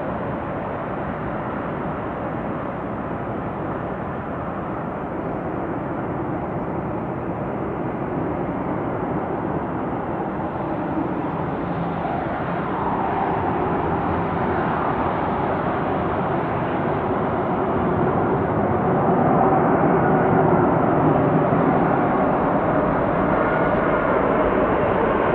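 Airbus A380-800's four Rolls-Royce Trent 900 jet engines on final approach to land, a steady rushing drone that grows gradually louder as the aircraft nears. A faint engine whine comes in about halfway through.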